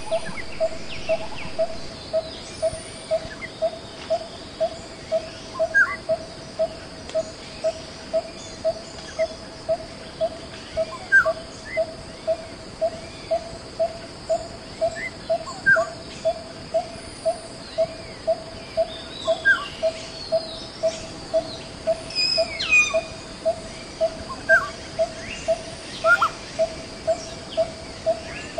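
Forest ambience: a single call note repeated steadily, about three every two seconds, over a constant high insect drone, with scattered short bird chirps and whistles.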